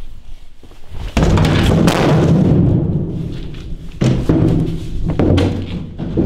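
Two loud, low, rumbling booms. The first starts suddenly about a second in and lasts about two seconds; the second comes about four seconds in.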